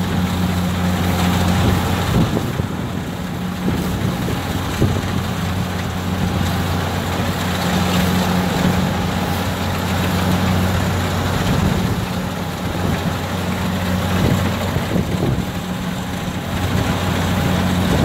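Kubota DC60 combine harvester's diesel engine running under load while the machine cuts and threshes lodged rice: a steady low drone over a broad, even mechanical noise.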